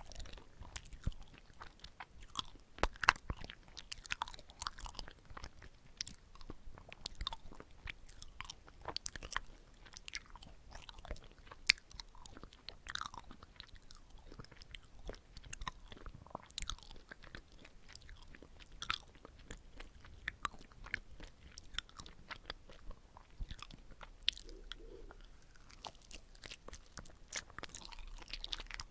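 Close-up mouth sounds of someone chewing soft, sticky red-bean rice cake (chapssaltteok, daifuku): a steady run of wet, irregular smacking clicks, with a few louder bites.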